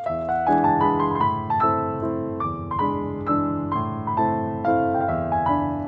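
Background piano music: a melody of evenly paced notes over held lower notes.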